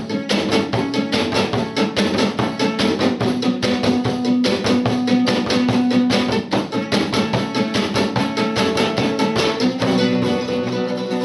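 Acoustic guitar strummed in a fast, even rhythm together with a hand-struck frame drum. The strikes thin out near the end while the guitar's tones ring on.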